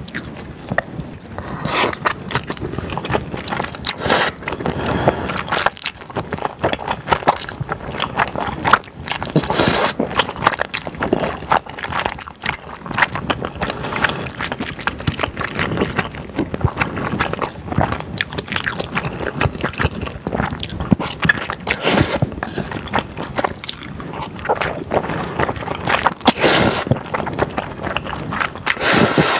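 Close-miked eating: thick, chewy glass noodles and beef in sauce being slurped and chewed, with a steady run of wet mouth clicks and smacks.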